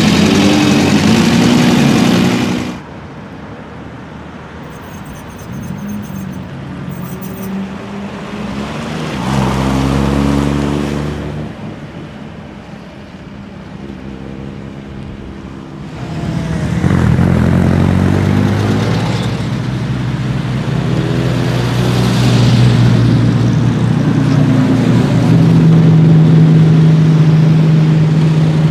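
Engines of several vintage sports cars idling and pulling away in turn, each rising in pitch as it accelerates. Much quieter for a stretch after about three seconds, then louder again from about sixteen seconds in, with a steady engine note near the end.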